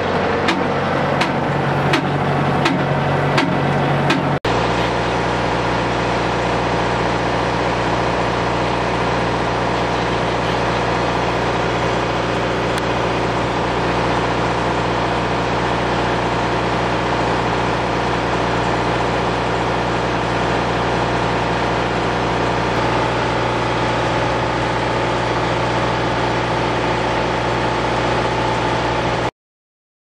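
Tractor engine running steadily with a Claas Rollant 46 round baler hooked up. For the first few seconds a regular clicking, about three clicks every two seconds, sounds over the engine; after that the engine runs on evenly.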